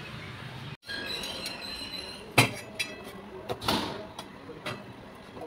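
Kitchen utensils being handled: after a brief dropout near the start, a handful of sharp knocks and clinks, the loudest about two and a half seconds in.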